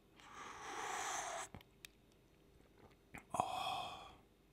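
Noisy slurping sips of a drink from a glass, two long sips with a few small clicks between them.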